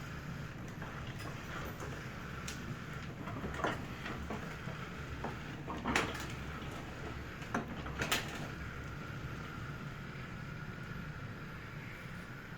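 Roomba robot's drive motors running steadily with a low hum and a faint whine, broken by a few sharp knocks, the loudest about six seconds in and another about eight seconds in.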